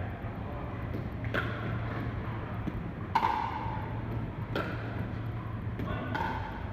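Pickleball rally: sharp hollow pocks of paddles striking the plastic ball, about five hits at uneven spacing, each ringing briefly in the large hall over a steady low hum.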